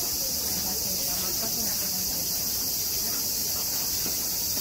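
A steady, high-pitched chorus of insects buzzing, with faint voices beneath it.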